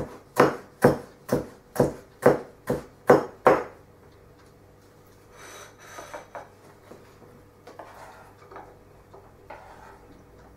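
A chef's knife slicing capsicum on a wooden chopping board: about nine crisp, even chops, roughly two a second, which stop after three and a half seconds. They are followed by quieter scraping and light taps as the knife pushes the cut pieces across the board.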